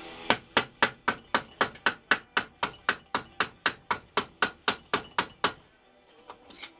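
Hand hammer striking a workpiece clamped in a bench vise: about twenty quick, even blows at roughly four a second, each with a short ring, stopping about five and a half seconds in, followed by a few lighter clinks near the end.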